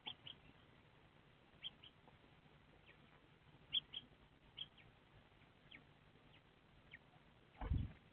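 Eurasian tree sparrows calling softly: the male gives short high calls, several in quick pairs, and the female answers with a small call. Near the end there is a dull knock as the bird moves against the nest box.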